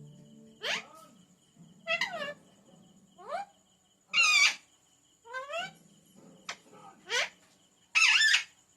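Pet Indian green parrot calling: a string of about seven short calls, most sweeping quickly up in pitch, with two louder, harsher squawks about four and eight seconds in.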